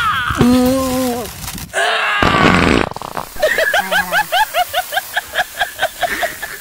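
Edited-in cartoon-style sound effects: a short held tone, then a noisy burst, then a fast run of high rising chirps, about five a second.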